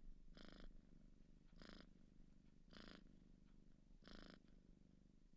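Tiny kitten purring faintly while being stroked, in short pulsed bursts about once a second, four times.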